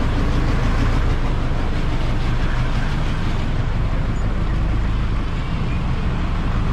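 A vehicle engine running steadily at idle close by, a low, even hum over street noise.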